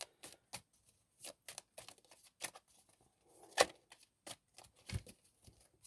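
Tarot cards being handled on a table: a string of irregular light clicks and taps, with one louder snap about three and a half seconds in.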